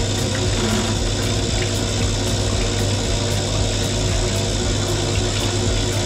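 Cylinder honing machine running, its coolant pump pushing honing oil through the hose over the block: a steady rush of liquid over a motor hum.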